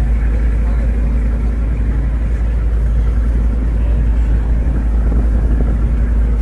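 Passenger ferry's engine running under way: a steady deep rumble with a steady hum over it.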